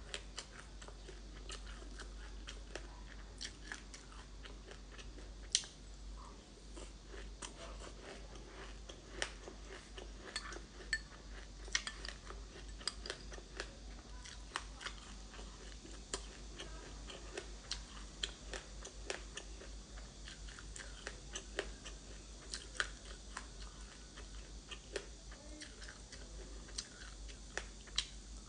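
Close-miked crunching and chewing of frozen black sesame seeds mixed with passionfruit pulp: many small, sharp, irregular crackles.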